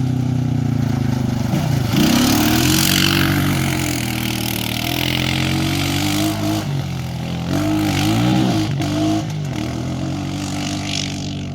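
2015 Honda Foreman Rubicon ATV's single-cylinder engine running under throttle. The pitch dips and climbs back up twice, about two seconds in and again about eight seconds in.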